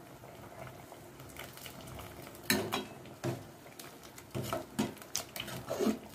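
Metal ladle stirring thick sambar in an aluminium pot. From about two and a half seconds in it knocks and scrapes against the pot's side several times.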